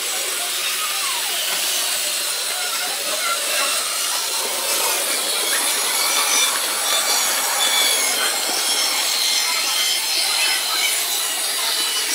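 Model trains running on a large layout: a steady whirr of small electric motors and wheels rolling on the rails, with faint high squeals here and there.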